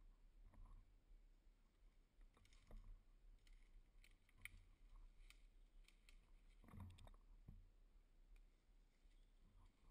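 Near silence, with faint scattered clicks and a soft knock about seven seconds in.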